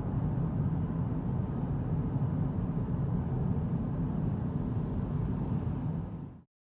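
A steady low rumbling noise that cuts off abruptly near the end.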